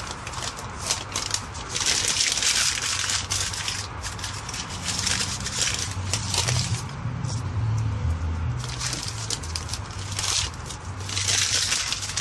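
A sheet of printed paper crumpling and crackling in gloved hands, in several bursts of a second or two each, as it is pressed onto and lifted off wet spray paint.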